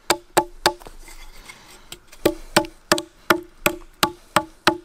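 Gränsfors Wildlife Hatchet making light, controlled chops into a wooden tent peg resting on a log, each stroke a sharp knock with a brief ring. Three quick strikes, a pause of about a second and a half, then a steady run of eight at about three a second.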